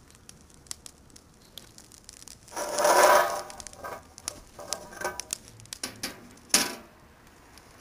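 Dry leaves burning in a metal can smoker, crackling with scattered snaps and a louder rushing burst about three seconds in. Near the end a sharp clank as a metal lid is set on the can to trap the smoke.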